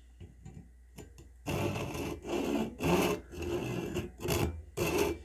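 Fine-toothed Irwin flush-cut pull saw cutting through a bamboo chopstick, with a run of rasping strokes, about two a second, starting about a second and a half in. The saw's teeth are somewhat dull.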